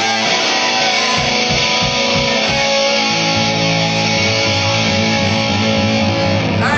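Live rock band playing an instrumental stretch with no singing: electric and acoustic guitars, bass and drums.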